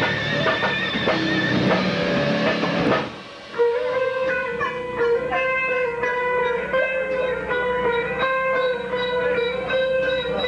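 Electric guitar played clean: single picked notes ringing over a long held note. Before it, a loud distorted noise with a steady high whistle cuts off suddenly about three seconds in.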